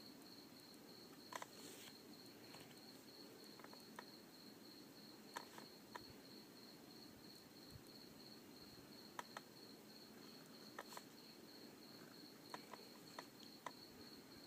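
Near silence: a faint, steady, high-pitched pulsing tone throughout, with a dozen or so faint scattered clicks.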